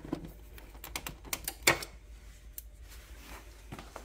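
A quick run of light clicks and taps as a charging cable's plug is handled and seated in a portable power station's AC charging input. The loudest tap comes about a second and a half in.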